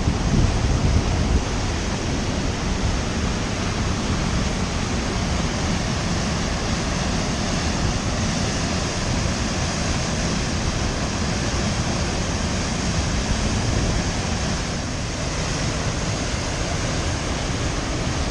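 Waterfall rushing close by: a steady, even roar of falling water heard from within its mist.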